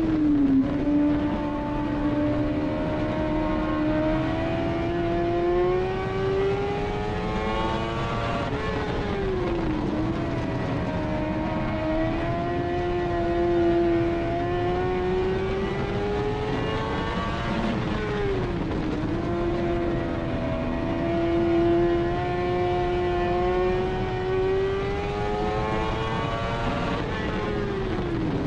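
Dirt-track stock car's engine at racing speed, heard from inside the cockpit. The pitch climbs steadily along each straight, then drops sharply and picks up again as the car eases off into each turn, three times in a regular lap rhythm.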